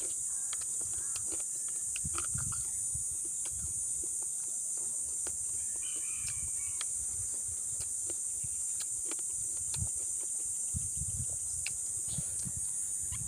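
Steady high-pitched drone of insects, with close chewing of crispy pork knuckle over it: scattered crunches, wet mouth clicks and soft low thuds as a man eats with his hands.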